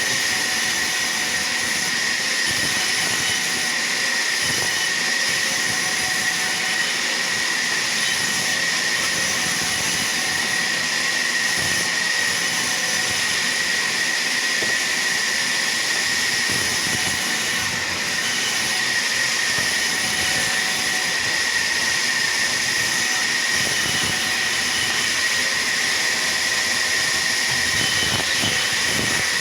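Sawmill saw running, a steady machine noise with a high whine that holds one pitch throughout.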